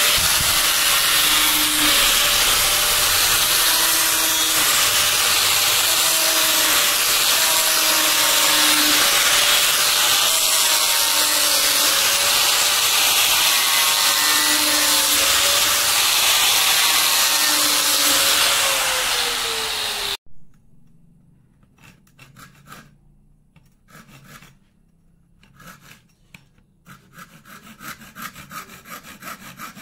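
A power tool runs loudly and steadily on teak wood, its motor pitch wavering, then cuts off suddenly about two-thirds of the way through. After brief quieter scrapes, quick rhythmic strokes on wood start near the end.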